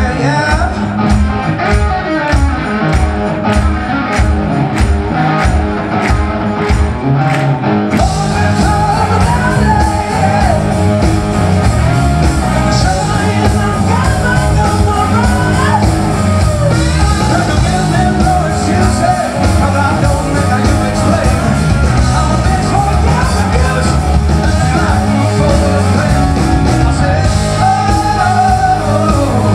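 Rock band playing live and loud, a singer over electric guitar, bass and drums. For the first eight seconds or so the playing is sparse with hits about twice a second, then the full band comes in.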